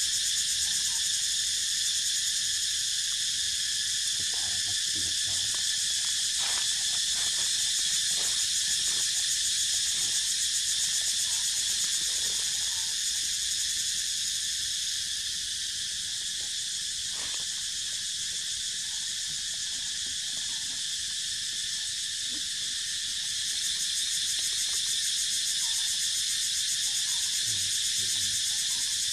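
Steady high-pitched insect chorus, several shrill tones droning together without a break. Scattered soft rustles and taps come mostly in the first half and once more past the middle.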